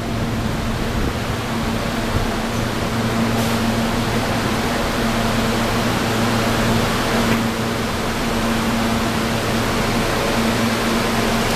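Stationary R160A subway car at the platform, its air conditioning and auxiliary equipment running: a steady hiss over a low, steady hum.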